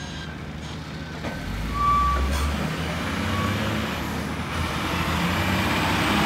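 CAT 725 articulated dump truck's C11 diesel engine running, revving up about two seconds in as the truck pulls away under power and staying louder after.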